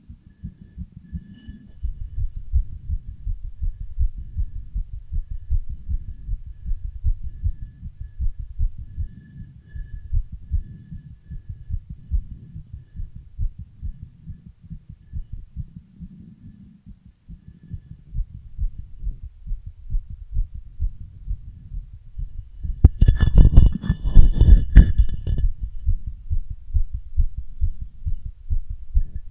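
A woman's heartbeat after a run: a steady series of low thumps, with heavy breathing. About 23 seconds in, a loud scraping noise lasts for about two and a half seconds and drowns the beats.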